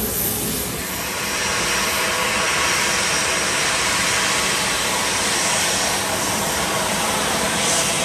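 Jet engines of a Southwest Boeing 737 airliner running as it taxis, a steady rushing noise with a faint high whine.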